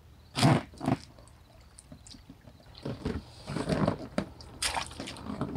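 Knocks, scuffs and shuffling as a man climbs out of a one-man inflatable pontoon boat at the bank. There are two sharp knocks about half a second apart near the start, then from about three seconds in a run of irregular rustles and bumps with a little water sloshing as he shifts his weight onto the frame and stands.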